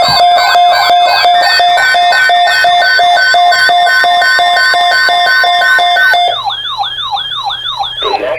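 Electronic siren-and-alarm sound effect: rapid falling siren sweeps, about three a second, layered over fast pulsing beeps. The beeps stop about six seconds in, leaving only the sweeps, which cut off near the end.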